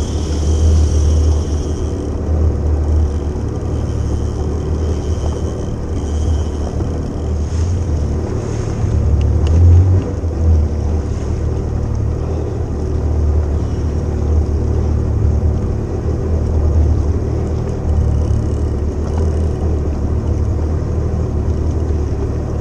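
Steady, loud low rumble of wind and sea water around a jet ski at sea.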